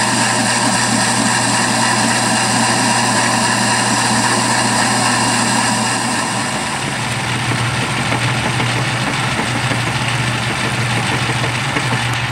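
Metal lathe running under power while a parting tool cuts into the spinning metal workpiece: a steady machine hum and whine with cutting noise, its tone shifting slightly about halfway through.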